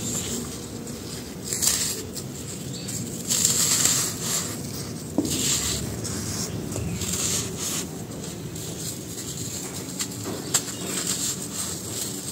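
Dry sand-cement chunks crushed and crumbled by hand into loose powder: gritty crunching and sifting in uneven bursts, with a few sharp cracks as pieces break off.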